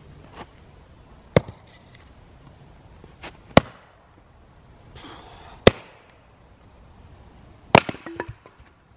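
Axe splitting firewood logs on a stump chopping block: four sharp strikes about two seconds apart, each followed by lighter knocks of split pieces falling.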